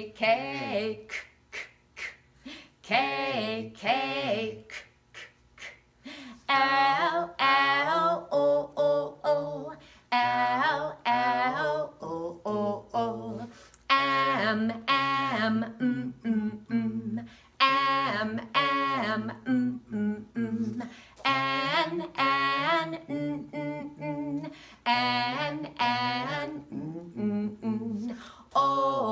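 A woman and a man chanting alphabet letters and their sounds together, one letter after another, in short repeated syllables.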